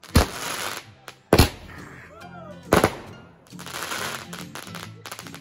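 Aerial fireworks bursting: three loud bangs about a second and a half apart, with crackling between them.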